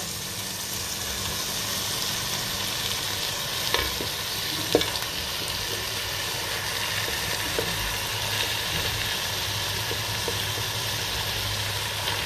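Ground spice paste with tomato and green chillies sizzling and bubbling as it fries in oil in a pot, stirred with a wooden spatula that knocks lightly against the pot a few times, around four, five and seven seconds in. This is the tumis stage, frying the paste until the raw smell is gone.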